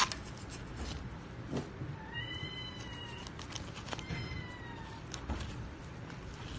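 A cat meowing twice, each meow about a second long with an arching pitch, the second one trailing down at the end. Light crinkling clicks of paper flyers sound around them.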